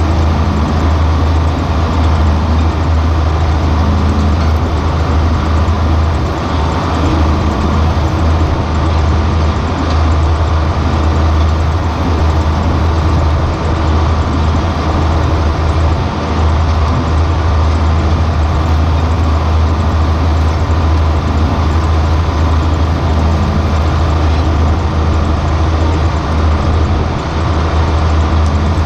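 John Deere 4440 tractor's turbocharged six-cylinder diesel running steadily under load while pulling a corn planter across the field.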